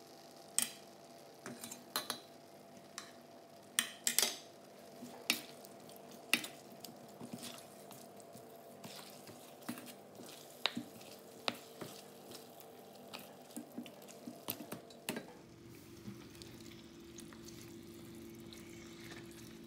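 Black ladle scraping and knocking against a stainless-steel wok while chicken pieces are stirred and turned in thick sambal sauce: a run of irregular clicks and taps. A steady hum sits underneath and drops to a lower pitch about fifteen seconds in.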